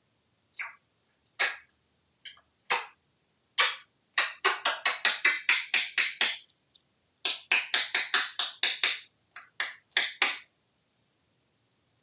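African grey parrot making sharp clicks and pops: a few single ones, then two quick runs of about five a second, and silence for the last second and a half.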